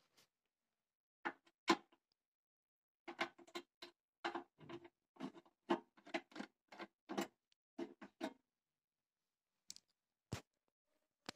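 Screwdriver turning a screw out of a metal power-inverter case: a run of short, faint clicks, about two or three a second, followed near the end by one sharper knock.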